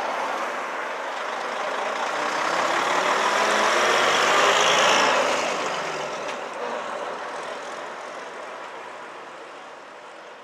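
Vintage front-engined double-decker bus pulling away and driving past close by. Its engine swells to its loudest about halfway through as it passes, then fades as it drives off.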